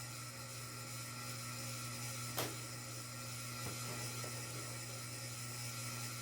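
Ceiling fan running with a steady hum and whir, with a single sharp click partway through and a few faint handling sounds after it.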